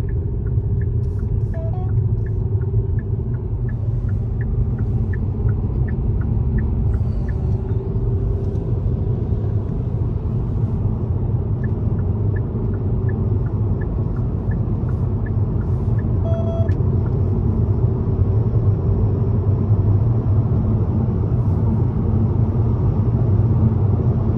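Steady road and tyre noise with engine hum inside a 2020 Hyundai Sonata's cabin at highway speed. A turn signal ticks about twice a second for several seconds, pauses, then ticks again, and a short electronic chime sounds about two thirds of the way through.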